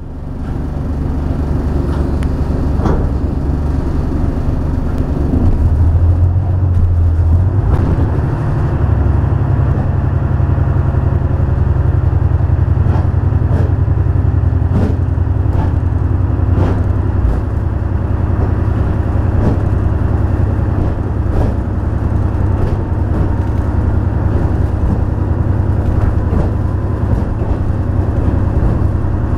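Diesel engine of a two-axle railbus, heard from inside the car as it pulls away and gathers speed; the engine note changes about eight seconds in. Occasional sharp clacks from the wheels passing over rail joints and points.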